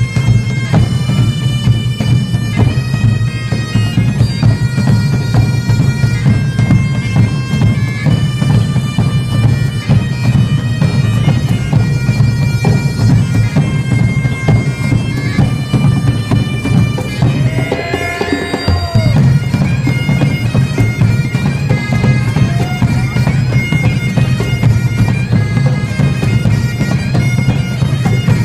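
Highland bagpipes playing a tune over their steady drone, loud and continuous. The drone cuts out briefly about two-thirds of the way through, then comes back.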